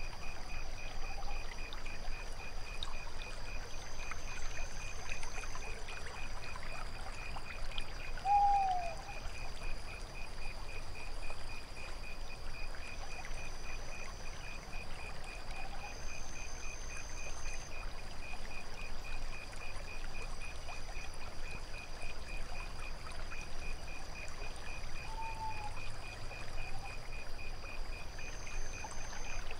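Night ambience of crickets chirping in a steady, even pulse over the wash of trickling water, with a higher insect trill coming and going in short bouts. A short falling call stands out about eight seconds in, with fainter ones near the end.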